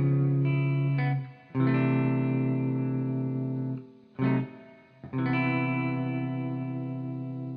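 Music: electric guitar chords with effects, each left to ring and fade. A short chord comes about four seconds in, then a long last chord slowly dies away.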